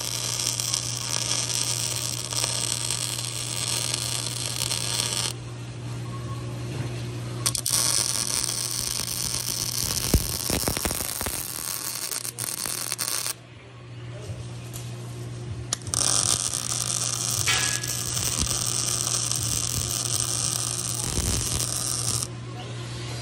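Wire-feed (MIG) welding around steel weld nuts: the arc crackles and sizzles in three runs of about five to six seconds each, with short pauses between beads. A steady hum carries on underneath.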